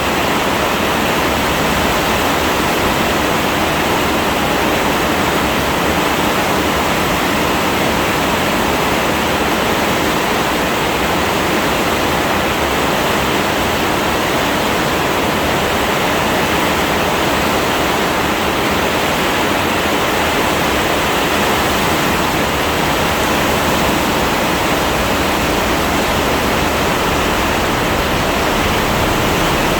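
Heavy rain falling in a dense, steady downpour, an even unbroken rush with no separate drops or gusts standing out.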